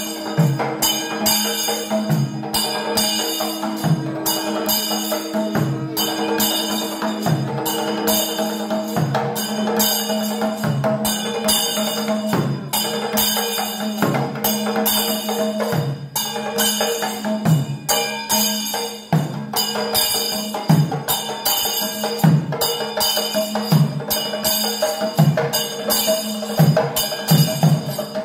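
Percussion music: a deep drum stroke about once a second, a little faster near the end, under fast, dense metallic cymbal strikes, over a steady held low tone.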